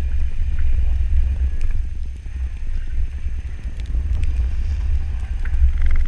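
Low, uneven rumble of a lifted Chevrolet Avalanche on mud-terrain tyres driving through deep snow, with wind buffeting the microphone mounted low on the truck's side.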